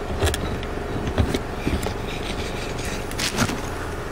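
Steel tie rod ends being handled, giving a handful of light metallic clicks and knocks over a steady low hum.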